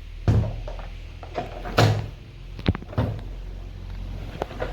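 Plastic parts of a Samsung canister vacuum cleaner being handled and set up: a handful of knocks and clatters, the loudest about a third of a second in and just under two seconds in.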